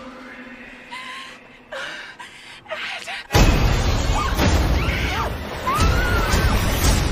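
Horror trailer sound design: about three quiet seconds with a faint voice, then a sudden loud hit, followed by loud, dense scary music with screeching tones that glide up and down.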